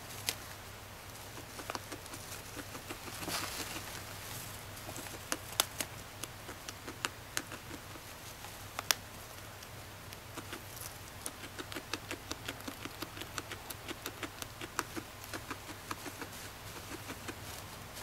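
Guinea pig chewing dry hay: crisp crunching clicks, settling into a fast regular chewing rhythm of about four crunches a second partway through.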